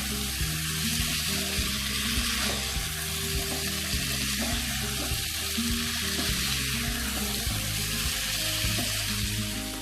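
Potatoes and spice paste sizzling steadily in hot oil in a pan as they are stir-fried, with soft background music underneath.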